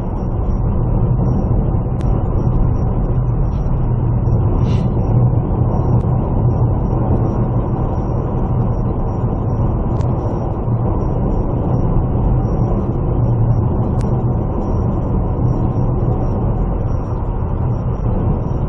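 Steady low rumble of a vehicle driving along a road: engine and tyre noise heard from inside the moving vehicle.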